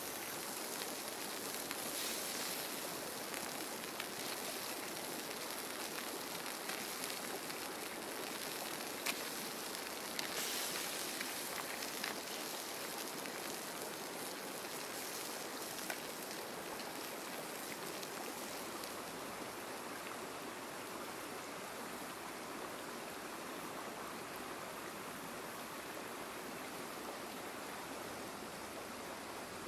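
Crabs and red chillies sizzling in hot oil in a wok: a steady frying hiss with a few sharp pops, briefly louder about ten seconds in.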